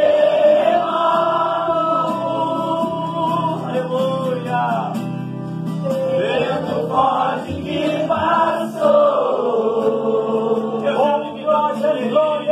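Live gospel worship song: a woman's voice holding long, sliding notes into a microphone, with acoustic guitar underneath.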